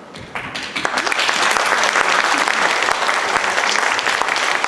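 Audience applauding: clapping starts a moment in, builds within about a second to full, and then holds steady.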